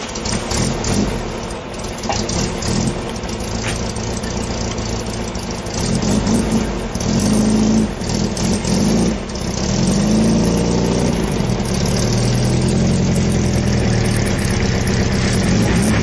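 Volkswagen Type 3 Fastback's air-cooled flat-four engine running as the car backs out. The revs rise and fall a few times, then settle to a steady run.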